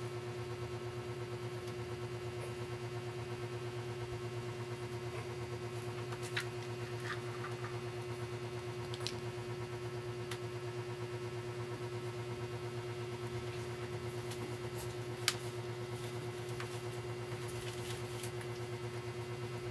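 Steady electrical machine hum, even throughout, with a few faint sharp clicks and one louder click about three-quarters of the way through.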